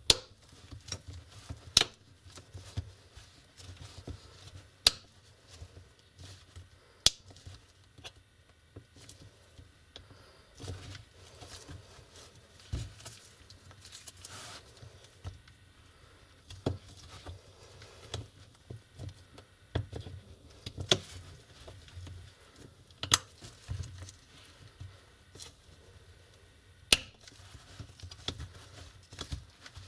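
Plastic snap clips of a Lenovo Ideapad screen bezel clicking loose one after another as the frame is pried off the display by hand and with a plastic pry pick. Sharp clicks come every few seconds, with quieter scraping and handling of plastic between them.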